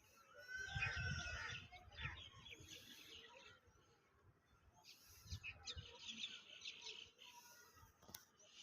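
Small birds chirping and twittering in repeated short bursts of high calls, with low rumbles about a second in and again past five seconds.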